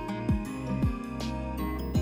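Instrumental background music with held notes over a deep bass and a steady deep drum beat.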